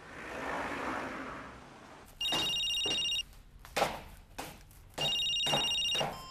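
Mobile phone ringtone: two electronic rings about a second long each, with a short gap between, an incoming call. Footsteps click on metal stairs between and after the rings, and a soft swell of noise comes before the first ring.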